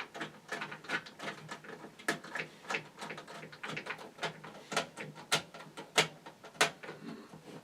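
A screw being driven into the metal PC case and drive bay: a string of irregular sharp clicks and light metallic knocks, several a second.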